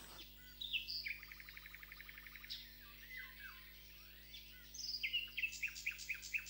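Birds chirping faintly: a quick trill about a second in, then a run of short repeated chirps, about five a second, near the end.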